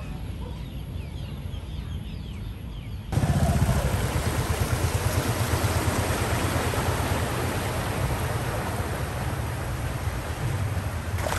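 A car driving through floodwater on a street, the water sloshing and splashing around its tyres over a low rumble. It starts abruptly about three seconds in, after a quieter stretch with faint chirps.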